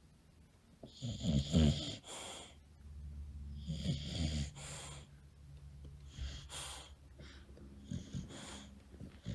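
English bulldog snoring and snorting through its short muzzle as it dozes off sitting up: four noisy breaths a couple of seconds apart, the loudest about a second and a half in.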